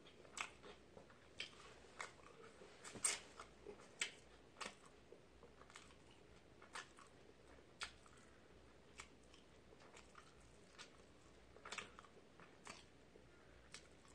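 Faint chewing of a mouthful of rice soaked in leftover ramen broth: soft wet mouth clicks and smacks at irregular intervals, loudest about three seconds in.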